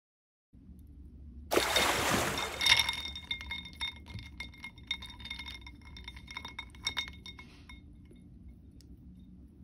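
Crinkling of plastic packaging, then a run of light clicks and clinks of small hard plastic toy pieces with a faint ring, dying away near the end.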